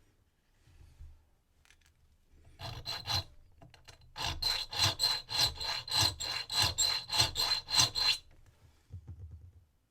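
Hand file rasping on a brass key blank: a few quick strokes, then after a short pause a steady run of back-and-forth strokes, about four a second. This is the filing step of key impressioning, taking brass off where the lock's wafers have marked the blank.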